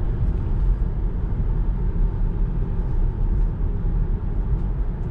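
Road and tyre noise inside the cabin of an electric 2021 Tesla Model 3 cruising at about 50 mph: a steady low rumble.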